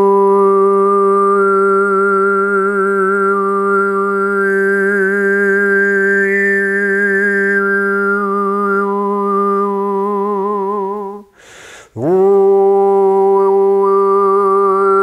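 A man's overtone singing: one steady sung drone, with a melody picked out in the overtones shifting above it. He breaks off for a breath about eleven seconds in, then takes up the drone again with a quick upward scoop.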